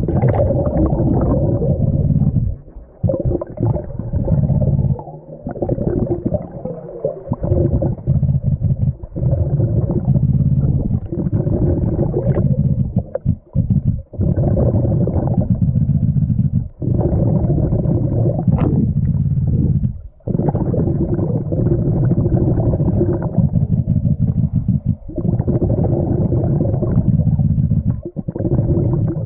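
Muffled underwater rumbling and bubbling of a diver's breathing, heard through the camera's underwater housing, in long stretches of a few seconds broken by short pauses. A couple of sharp knocks stand out, one past the middle and one about two-thirds through.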